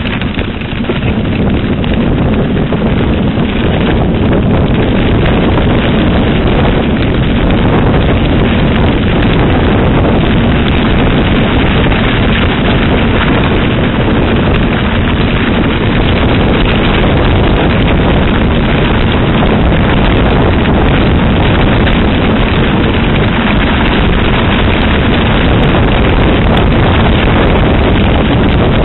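Wind buffeting the microphone of a camera on a moving mountain bike, mixed with the rumble of tyres rolling over a gravel track at speed.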